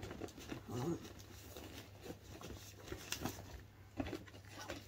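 A gift bag rustling and crinkling as hands rummage inside it, trying to pull the present out, in scattered soft rustles and small taps.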